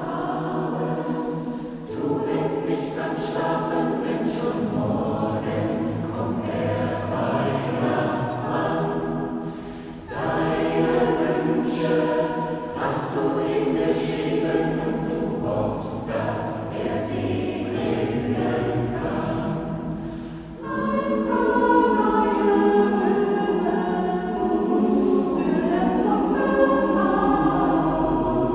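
Mixed choir of women's and men's voices singing a cappella in several parts, in long phrases with short breaks about 2, 10 and 20 seconds in.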